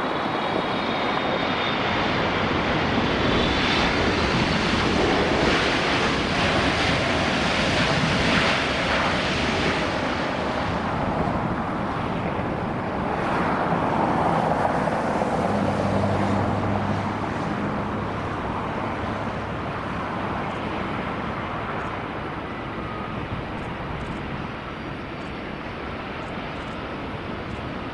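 Jet engine noise from a Boeing 777-300ER rolling out just after touchdown, loud for the first ten seconds or so. Then the quieter, steady whine and hum of an Airbus A330's engines on final approach, growing a little nearer toward the end.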